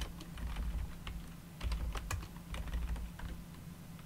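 Typing on a computer keyboard: irregular keystroke clicks in short runs, over a steady low hum.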